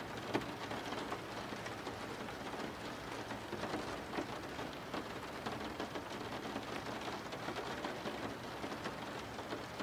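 Steady rain falling: an even hiss flecked with many small drop ticks.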